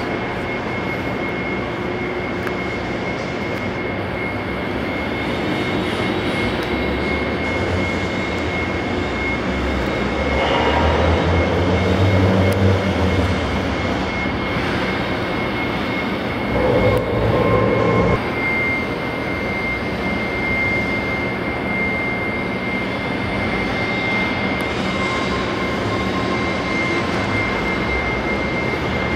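Steady mechanical drone with a constant high-pitched whine over it. A deeper rumble swells in about ten seconds in and fades by thirteen, and a shorter swell comes about seventeen seconds in.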